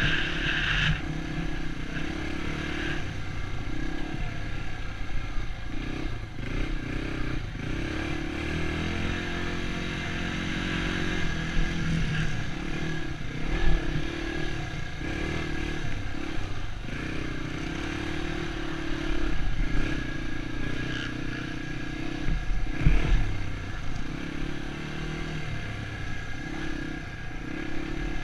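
Dirt bike engine running along a trail, the throttle opening and closing so the engine note keeps rising and falling. A couple of sharp knocks come through partway in, at about 13 and 23 seconds.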